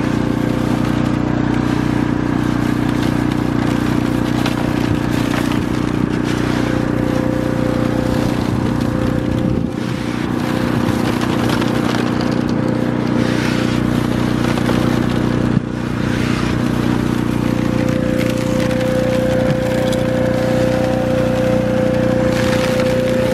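A drywasher running steadily, its engine-driven blower giving a constant hum, while dry gravel is poured from buckets onto its shaking wire classifier screen. There is a single sharp knock about two-thirds of the way through.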